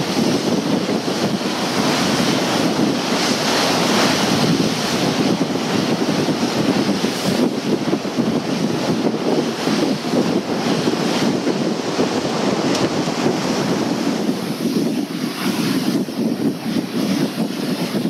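Wind buffeting the microphone over the splash and rush of water against the hull of a moving boat at sea, a steady loud rushing noise.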